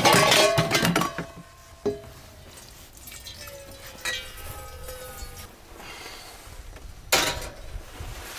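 Light metallic clinks of camp cookware: a sharp knock about two seconds in and a softer clink around four seconds, each followed by a short ring. A brief noisy scrape or rustle comes near the end.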